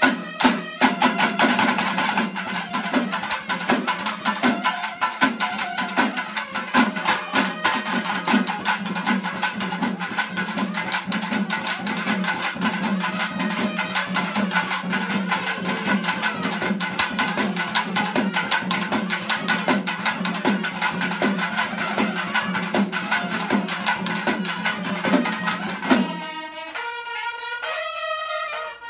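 Nadaswaram double-reed horns and barrel drums playing fast South Indian temple festival music, the drums beating dense rapid strokes under the horns' melody. Near the end the drumming stops and the horns carry on alone.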